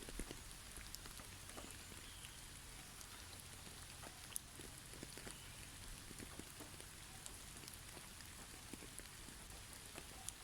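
Heavy snow falling on snow-covered trees: faint, irregular pattering and ticking over a steady soft hiss.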